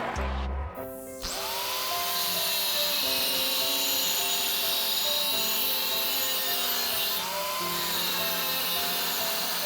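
Background music with stepped melody notes over a steady rubbing noise of wood being worked by hand, which starts about a second in.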